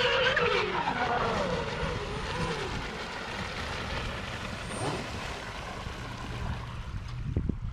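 High-pitched whine of an electric RC speedboat's brushless motors, loudest at the start and falling in pitch over the first two or three seconds as the boat passes and slows, then fading away.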